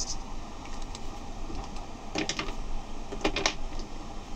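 Water-based felt-tip marker scratching over thin paper in short strokes, with two small clusters of light plastic clicks about two and three seconds in as the markers are put down and picked up.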